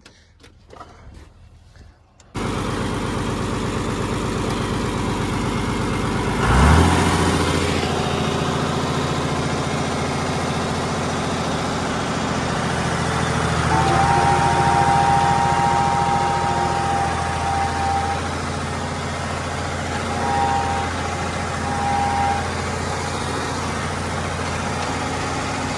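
Old John Deere tractor's engine running steadily while pulling a rock picker. It starts abruptly after a couple of quiet seconds, swells briefly a few seconds later, and a higher steady whine joins it about halfway through.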